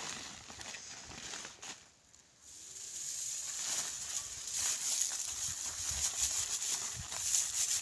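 Dry straw rustling and crackling as it is gathered and pressed together by hand, with many small crackles; after a brief lull it grows louder and busier about a third of the way in.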